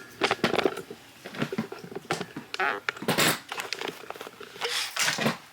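Irregular rustling, knocks and clicks of a camera being handled and set down.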